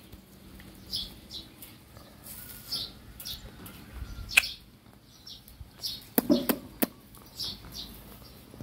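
Short high bird chirps now and then, with a few sharp clicks and a brief low call about six seconds in.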